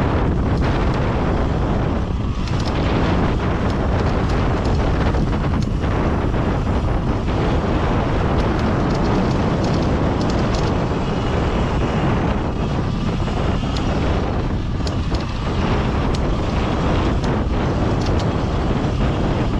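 Steady wind noise buffeting the microphone, with the rumble of tyres rolling over a loose, rocky dirt trail, as an electric dirt bike rides along.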